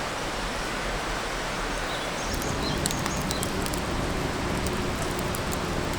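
Steady babbling of a shallow river, with a few short bird chirps a couple of seconds in and a low rumble joining about two seconds in.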